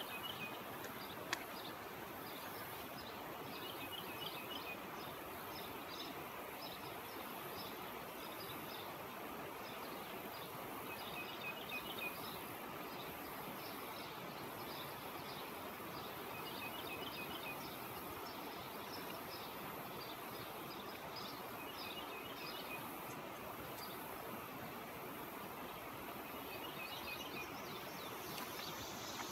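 A songbird singing the same short chirping phrase over and over, about every five or six seconds, over a steady outdoor hiss. A single faint click about a second in.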